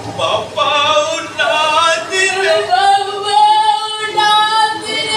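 A voice singing unaccompanied: short melodic phrases at first, then one long held note from about halfway through.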